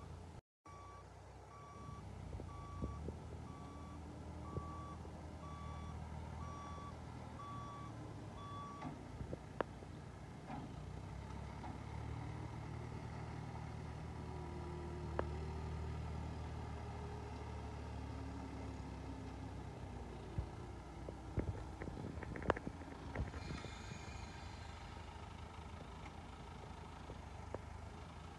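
A vehicle's reversing alarm beeps about once a second for roughly the first nine seconds, over an engine that runs throughout with its pitch rising and falling as it works. A few sharp knocks and clanks come between about 20 and 23 seconds in.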